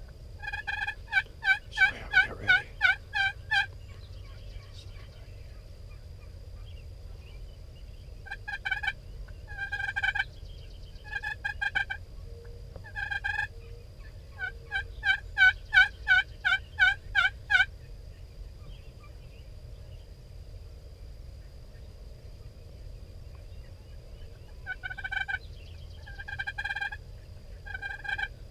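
Runs of turkey yelps, each a string of evenly spaced notes about three a second. There is a run near the start, short runs around eight to thirteen seconds in, a long run in the middle and another near the end.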